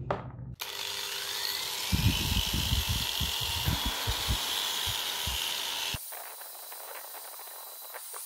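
Electric angle grinder spinning up with a rising whine, then running with uneven low knocks as the disc works on metal, stopping abruptly about six seconds in.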